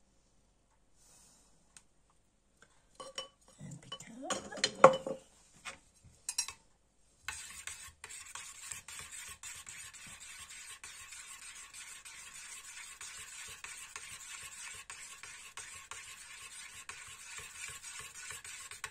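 A metal spoon stirring cream in a stainless steel bowl, a steady scraping of metal on metal with fine rapid clicks, starting about seven seconds in. Before that, a few clinks and knocks around four to five seconds in.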